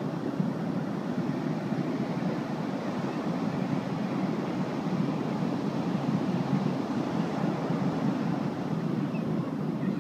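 Steady rush of ocean surf breaking on a sandy beach, mixed with wind.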